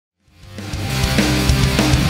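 Intro music with a driving drum beat, fading in from silence over the first second.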